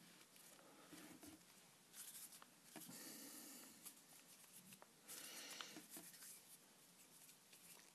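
Near silence with faint rubbing and a few light ticks of hands rolling and handling play dough, in two short spells.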